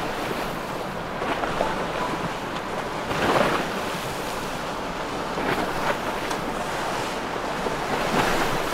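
Waves and rushing water, with wind buffeting the microphone and a boat engine running underneath. The wash swells briefly about three seconds in.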